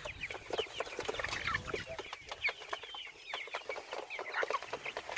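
A flock of chickens clucking, with many short, overlapping calls.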